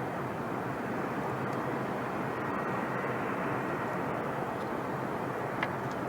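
Steady background rumble with one brief high chirp near the end.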